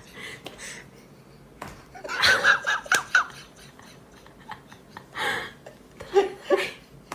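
A person laughing quietly in short bursts, loudest about two seconds in and again near the end.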